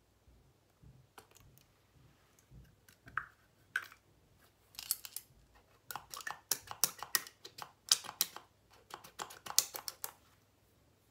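Bursts of rapid clicking and tapping from hands handling a small white plastic cosmetic jar close to the microphone. The clicks are sparse at first, then come in dense runs from about halfway in until shortly before the end.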